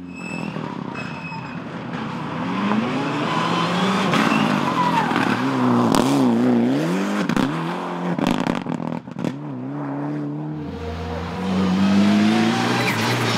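Mitsubishi Lancer Evolution X rally car's turbocharged four-cylinder engine revving hard through the gears on gravel, its pitch rising and falling and wavering quickly as it is driven through bends. A few sharp cracks come in the middle, and the revs climb again near the end.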